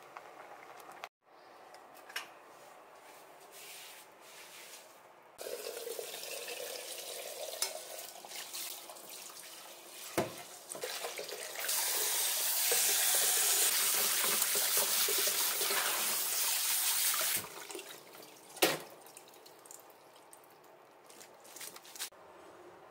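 Kitchen tap running onto udon noodles in a mesh strainer over a stainless steel sink, loudest for about six seconds in the middle, with quieter splashing before it. A sharp knock comes just before the loud stretch and another just after it.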